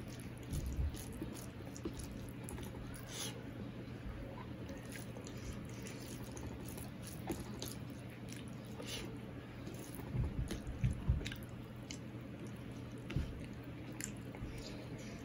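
Eating rice and chicken curry by hand: fingers squishing and mixing wet rice and curry on a steel plate, with chewing and small wet mouth clicks throughout. A few heavier low knocks come about ten to eleven seconds in.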